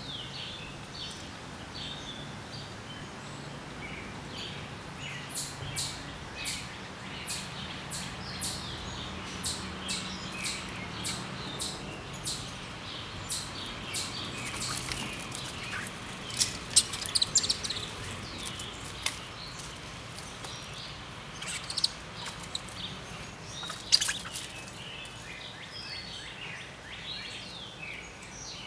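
Outdoor bird calls: faint twittering throughout, and through the middle a long run of sharp, high chip notes, about two a second, with a few louder clicks among them.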